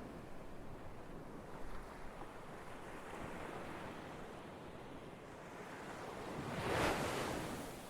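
Ocean waves washing on the shore, a steady rush with one wave swelling and breaking loudest near the end.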